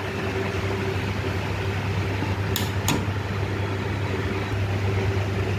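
A steady mechanical hum of room background, with two short sharp clicks close together about halfway through.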